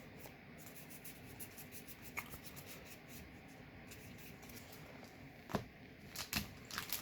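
Faint rustle and light ticks of Magic: The Gathering cards being slid and flicked through by hand, with a sharper tap about five and a half seconds in.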